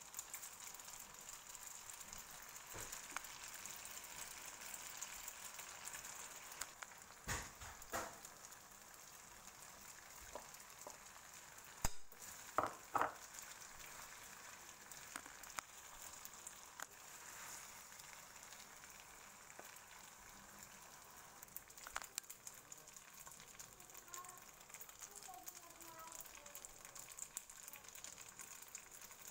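Spaghetti, vegetables and shrimp sizzling in a hot frying pan as they are stirred with a wooden spatula, a steady faint hiss. A few knocks of the spatula against the pan come about a quarter of the way in and again near the middle.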